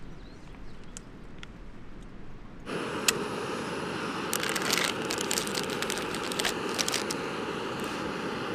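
A steady rushing hiss that starts abruptly about three seconds in, after a quieter stretch, with a scatter of small crackling clicks in its middle.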